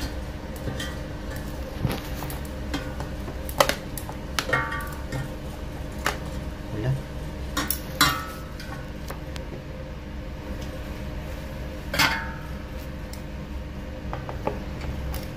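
Metal tongs and a plastic tray clinking and knocking against an air fryer's basket as frozen French fries are tipped in and spread out. The clinks are irregular and sharp, the loudest about three and a half, eight and twelve seconds in, over a steady low hum.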